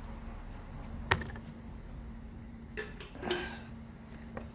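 Clicks and a short plastic rattle from a C3 Corvette taillight's bulb socket and lens being handled and worked loose: one sharp click about a second in, then a few more clicks and a brief rattle near three seconds, over a steady low hum.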